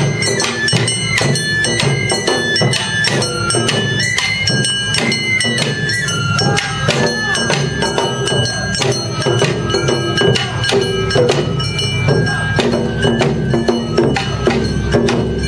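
Awa Odori festival music: shinobue bamboo flutes playing a high, wavering melody over the steady beat of taiko drums and the metallic clanging of a kane hand gong.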